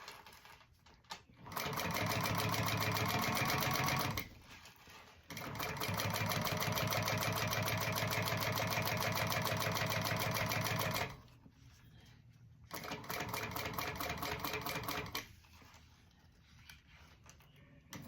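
Sewing machine top-stitching along a 3/4-inch strap, running in three spells of rapid, even stitching with short stops in between.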